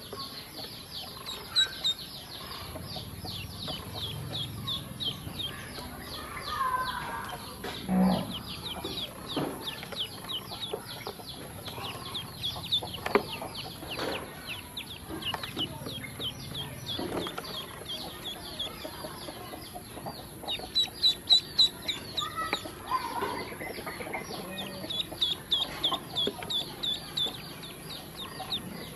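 A group of eight yellow ducklings peeping without pause: rapid, high, falling peeps, several a second and overlapping, with louder bursts about three-quarters of the way through. Occasional sharp taps come from their bills pecking feed on the floor of the plastic tub.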